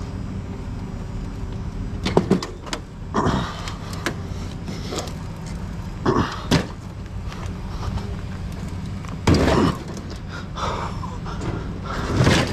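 Scattered thumps and clanks of scrap metal and appliances being handled and loaded, over a steady low hum.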